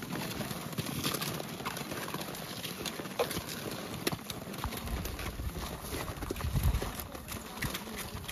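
Footsteps of a group of hikers crunching on packed snow and ice, an irregular patter of many boot steps. A low rumble swells briefly past the middle.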